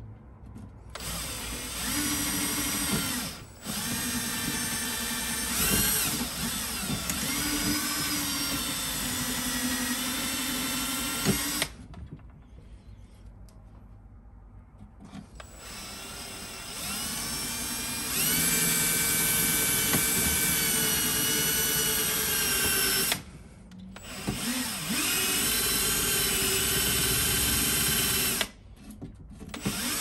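Milwaukee cordless drill boring the cam lock hole into a prefab cabinet panel, run in long bursts with several short stops and a quieter lull near the middle; the motor's whine rises and falls in pitch with its speed.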